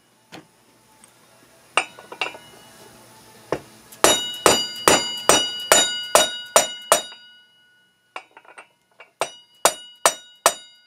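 Hammer blows on a bearing driver, tapping a new sealed wheel bearing into a BMW motorcycle's front wheel hub, each strike ringing metallically. A few single taps come first, then a quick run of about eight strikes at two or three a second, a short pause, and another run of about five.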